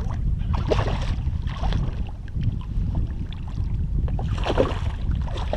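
Wind rumbling on the microphone, with a few short splashy bursts: one about a second in, another soon after, and a stronger one near the end.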